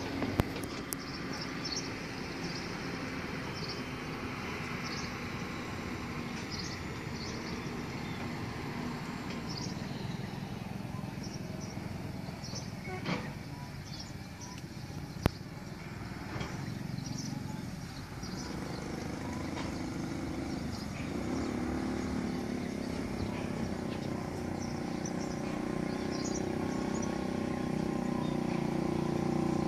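Outdoor ambience: a steady low rumble with small birds chirping now and then, and a low hum that grows louder through the second half.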